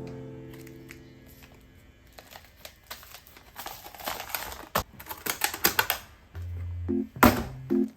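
A run of irregular light clicks and rustling from small kitchen containers and packaging being handled, with a sharp click about five seconds in. Background music fades out at the start and comes back with a few low piano notes near the end.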